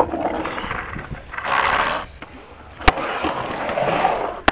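Skateboard wheels rolling on a concrete bowl, a rough rushing noise that swells and fades. A single sharp clack comes about three seconds in.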